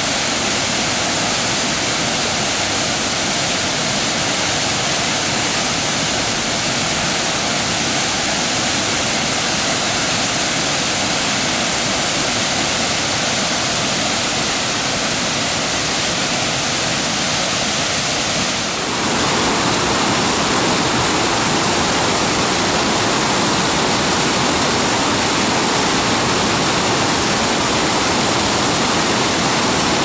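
Sezibwa Falls, a waterfall with brown floodwater pouring over rocks, rushing steadily as one even wash of water noise. Just before two-thirds of the way through there is a short dip, after which the rush is slightly fuller.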